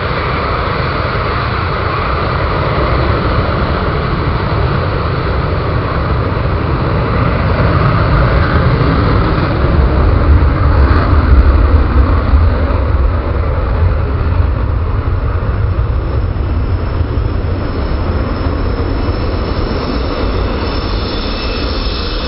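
A pair of Panavia Tornado jets running their RB199 turbofan engines at high power for takeoff: a loud, steady jet rumble that swells to its loudest about halfway through, then eases a little.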